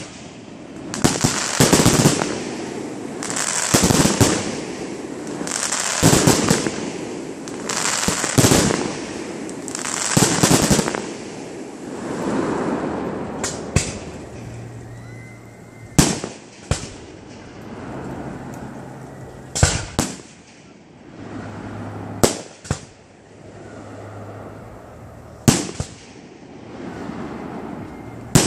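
Aerial fireworks display: shells bursting about every two seconds, each followed by a long crackling spray, then a run of single sharp bangs with echoing tails a few seconds apart.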